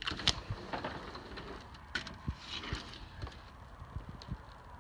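Footsteps: irregular light thumps and clicks as someone walks, with a brief swish about halfway through.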